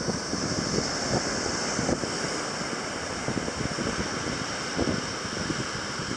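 Surf breaking and washing up a beach, a steady rushing, with wind buffeting the microphone in uneven low gusts.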